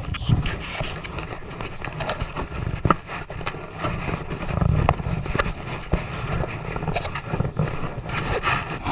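Wind buffeting the microphone in a low, gusting rumble, with scattered irregular crunches and knocks.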